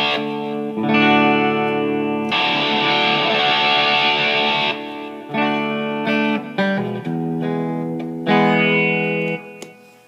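Electric guitar chords strummed through an amplifier with distortion, each chord left to ring out; the sound dies away near the end.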